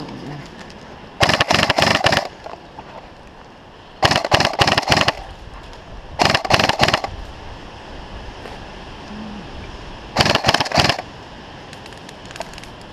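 Airsoft electric gun firing on full-auto: four rapid bursts of clicking shots, each about a second long, coming about a second in, near four seconds, near six seconds and near ten seconds in.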